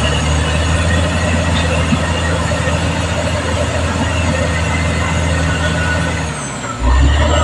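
Caterpillar D6R XL bulldozer's diesel engine running steadily under load, with a steady high whine above it. Near the end the engine sound sags briefly, then picks up again louder.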